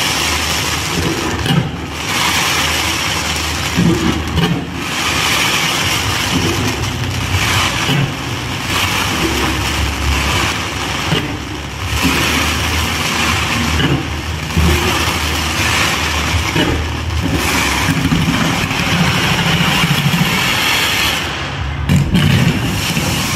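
Fireworks barrage going off nonstop: dense crackling and bursts over a low rumble, with short lulls every few seconds.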